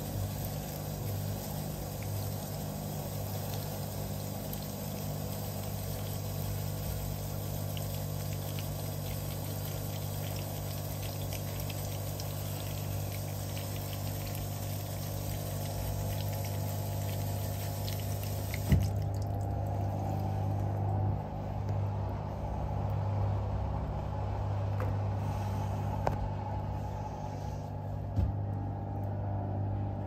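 Hoover Electronic top-loading washing machine on spray rinse: the motor hums as the drum spins while a weak stream of cold water trickles in, the cold fill poor because the cold-water inlet solenoid valve is failing. About two-thirds of the way through there is a click and the water sound stops, leaving the motor and drum running.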